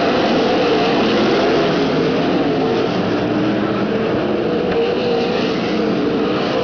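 Engines of several winged sprint cars, 410 V8s, running together on a dirt oval. Their pitches overlap and waver steadily up and down.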